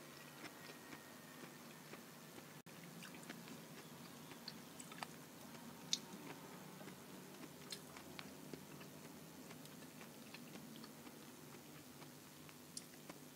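Faint, sparse chewing of a mouthful of spicy raw-shrimp salad, with scattered small wet clicks and ticks.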